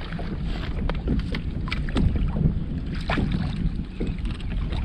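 Wind on the microphone and water lapping at a kayak hull, with several short knocks and clicks scattered through.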